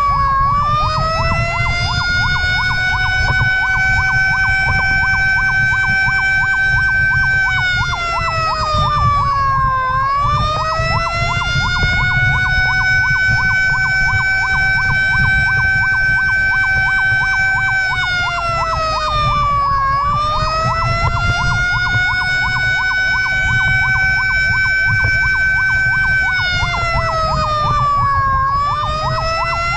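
Emergency vehicle sirens on a fire response. One siren wails: it rises over a couple of seconds, holds high for several seconds, then falls, about every ten seconds. Under it a second siren runs a fast yelp, with a low engine and road rumble beneath.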